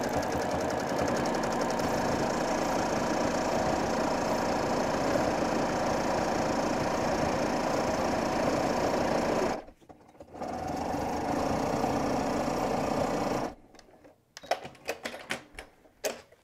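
Domestic sewing machine stitching steadily during free-motion quilting. It stops briefly just before 10 seconds in, runs again for about three seconds, then stops, leaving only a few faint clicks.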